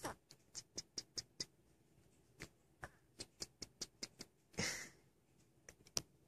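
A sleeping newborn's mouth making soft lip-smacking, sucking clicks, about four or five a second in two short runs, as a finger strokes its cheek beside the lips. A brief breathy hiss comes about two-thirds of the way through.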